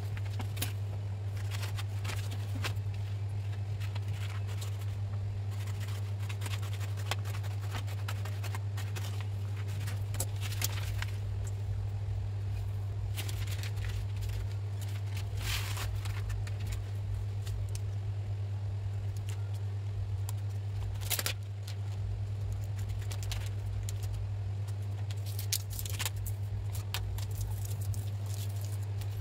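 A steady low hum, with scattered crinkles and crackles of a self-adhesive marble-pattern vinyl film being unrolled, handled and pressed onto a countertop.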